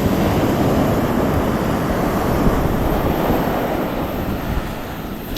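Ocean surf breaking and washing up the beach, swelling at first and slowly fading, with wind buffeting the microphone.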